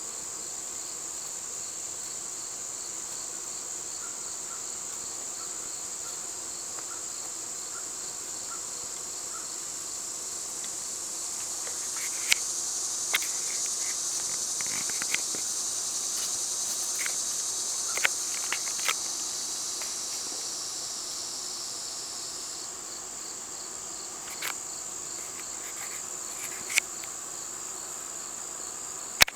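A steady, high-pitched chorus of singing insects, swelling louder for several seconds in the middle. Scattered sharp clicks fall over it.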